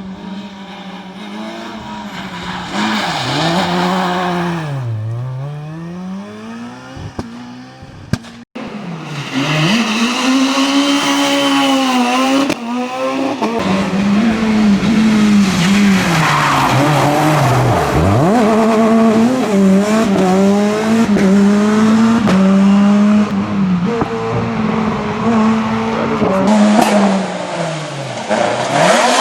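S2000-class rally cars, with naturally aspirated 2.0-litre four-cylinder engines, passing at full attack one after another, revving high and falling through gear changes, with tyre squeal; the pitch drops sharply as each car goes by. A brief break about eight seconds in.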